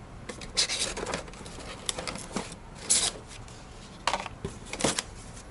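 Rustling and crinkling of packaging being handled during unboxing, in several short bursts.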